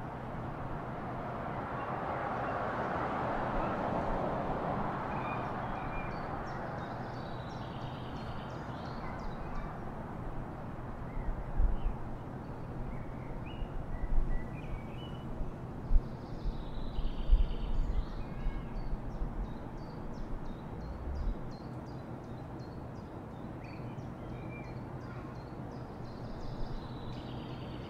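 Added street ambience: a steady background of traffic noise with a low hum, swelling a few seconds in as if a car passes, and birds calling over it. There are a few low thuds in the middle.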